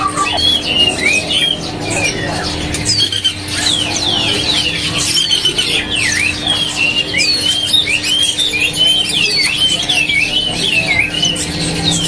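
Many caged songbirds chirping and singing at once, a dense stream of quick, overlapping high chirps and slurred whistles, over a steady low hum.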